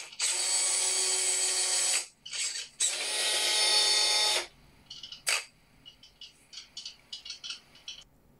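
Electric motor and gearbox of a radio-controlled Tamiya Mammoth dump truck model whirring steadily in two runs of under two seconds each, with a short pause between, followed by a string of faint clicks.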